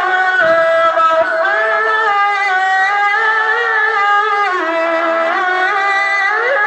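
A qari's voice in melodic Qur'an recitation (tilawah), holding long ornamented notes that glide and waver in pitch, sung high in the maqam Rast.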